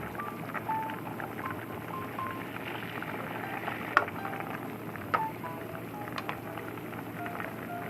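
Soft background music picking out a simple melody of short held notes over a steady bubbling hiss of food simmering in a pan, with a few sharp clinks about four, five and six seconds in.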